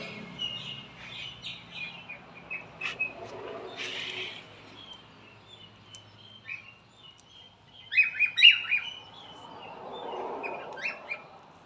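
Pet cockatiels chirping and calling in short, repeated chirps, with a burst of loud chirps about eight seconds in.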